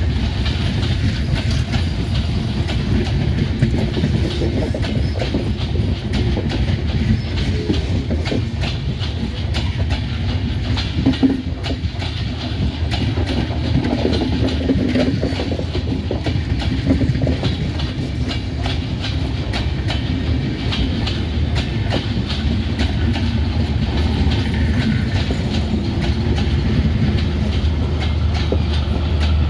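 LHB passenger coaches of an intercity train rolling past at close range: a steady low rumble with a continuous run of wheel clicks and clatter over the rails. Near the end a steady low hum comes in.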